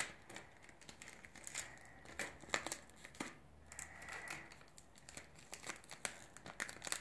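Paper card and sticky tape rustling and crinkling as they are handled and turned over, in scattered irregular crackles and small clicks.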